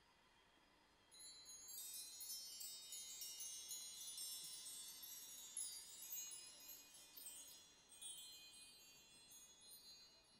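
Mark tree (bar chimes) swept by hand, a soft cascade of many high ringing metal tones that starts about a second in, is stroked again several times and slowly dies away near the end.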